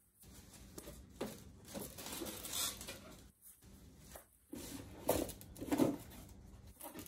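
Footsteps on a concrete garage floor and the handling of brake parts and their cardboard packaging: a few separate soft thumps and rustles, the loudest about five to six seconds in.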